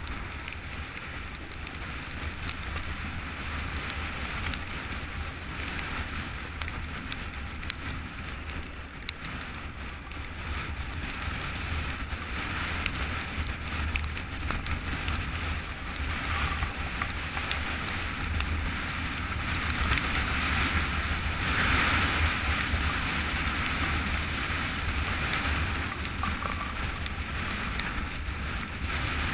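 Wind buffeting an action camera's microphone during a fast snowboard run, with the board hissing and scraping over the snow; it gets louder about two-thirds of the way in.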